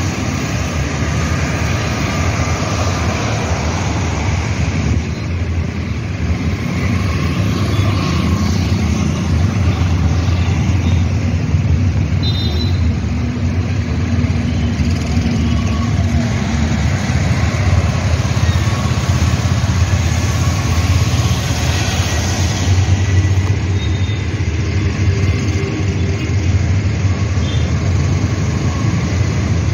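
Steady road traffic noise from cars, scooters and trucks passing close by, with a constant low engine hum.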